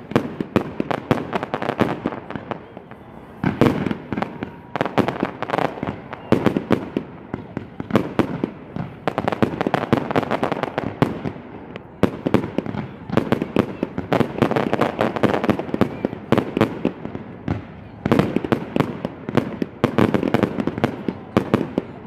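Fireworks display in a continuous barrage: rapid bangs and crackles, several a second, swelling every few seconds into denser, louder volleys.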